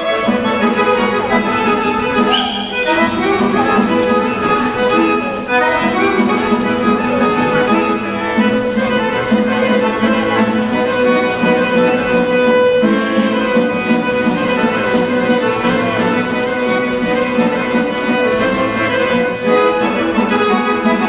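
Accordion-led Serbian folk dance music for a kolo, with fiddle, playing steadily at a lively pace.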